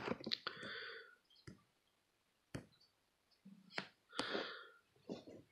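Handling noise from a phone held in the hand: a handful of scattered light clicks and knocks, with two brief rustles.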